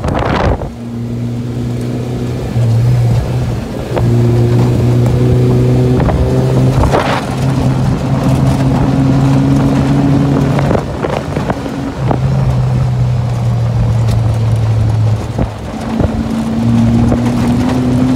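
A motor engine running steadily with a low hum, its pitch holding level and then shifting in a few steps, with a few brief clicks.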